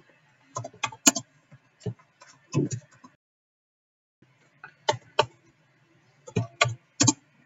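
Computer keyboard being typed on: quick clusters of key clicks with a short pause partway through.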